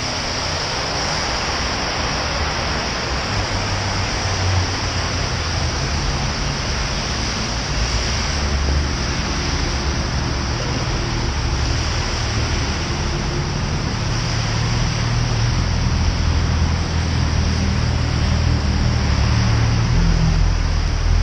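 Steady rushing noise of a bicycle being ridden through rain on a wet road: tyre hiss and wind on the microphone, with road traffic alongside. A low rumble grows stronger in the second half.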